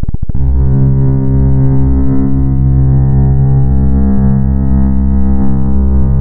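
Loud experimental noise music: a rapid pulsing stutter breaks off about half a second in. It gives way to a dense, steady drone of many held tones, heaviest in the bass.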